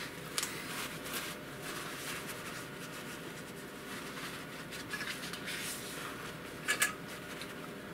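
Paper towel rustling softly as a gloved hand blots the resin printer's vat dry, with a sharper brush of paper about half a second in and again near the end.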